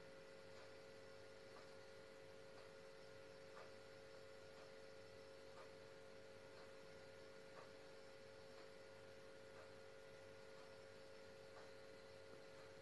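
Near silence: room tone with a faint steady electrical hum and a soft tick about once a second.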